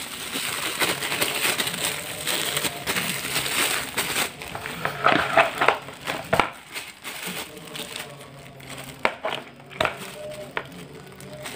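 A thin plastic bag crinkling as it is opened and handled, then a spoon scraping through thick bait paste in a plastic bowl, with a few sharp clicks.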